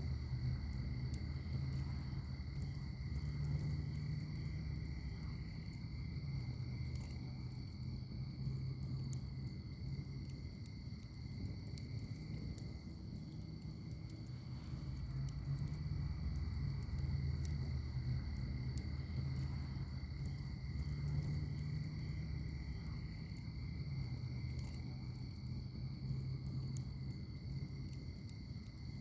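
Wood fire burning in an outdoor fire pit: a low rumble of flames that swells and fades every several seconds, with faint scattered crackles. A steady high-pitched insect trill runs underneath.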